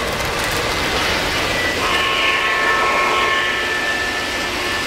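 O-scale model trains running on three-rail track with a steady rolling rumble. About two seconds in, a locomotive sounds a multi-tone whistle chord and holds it for about two and a half seconds.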